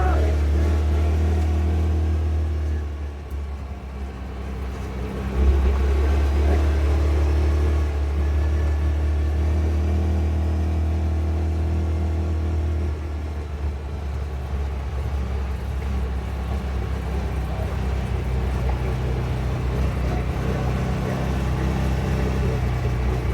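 A vehicle's engine running steadily under way. It eases off about three seconds in and picks up again sharply a couple of seconds later, then runs on evenly.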